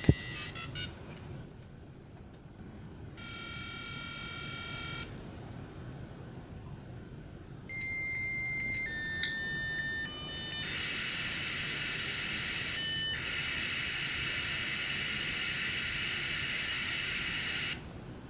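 Palm Pilot modem dial-up handshake with a desktop modem. Quick dialing tones at the start and a tone of about two seconds around three seconds in are followed by a string of steady high tones that change pitch. About ten seconds in a long hiss of static begins as the modems train up, and it cuts off just before the end when the connection is made.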